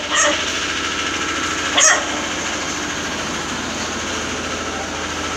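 A small engine running steadily, with a short dog bark about two seconds in.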